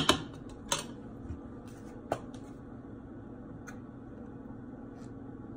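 A utensil knocks against a mixing bowl a few times in the first two seconds, the first knock the loudest. After that come a few faint clicks of a plastic bottle cap being opened, over a steady low hum.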